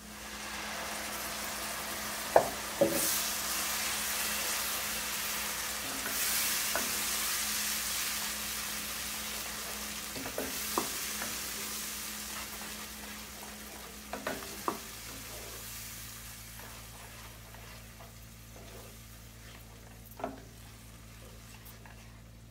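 Ground tomato puree hitting hot oil with fried onions and spices in a sauté pan, sizzling as it is stirred with a wooden spoon. The sizzle swells at once, holds, then slowly dies down, with a few sharp knocks along the way.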